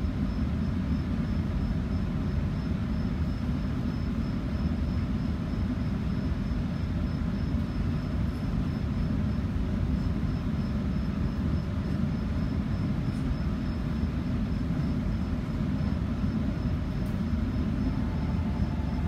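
Interior of a Shinano Railway 115-series electric train under way: a steady low rumble of the running train, wheels on rails and the carriage's running gear.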